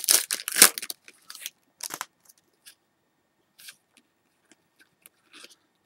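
Trading cards and their foil pack wrapper being handled: loud crinkling in the first second, then scattered faint rustles and light clicks.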